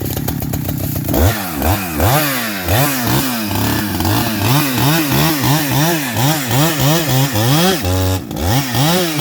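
Two-stroke chainsaw idling, then revving hard as it cuts the felling notch in a tree trunk. Its pitch rises and falls about twice a second as the saw works the cut, with a brief drop back toward idle near the end.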